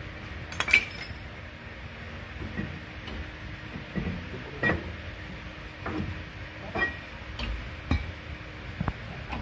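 Irregular metallic clinks and taps of tools on metal car parts, about eight sharp strikes, a few of them ringing briefly, over a steady low hum.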